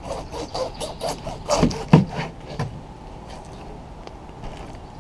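A large kitchen knife sawing back and forth through the tough top of a pineapple, about four rasping strokes a second, loudest about two seconds in and stopping shortly after.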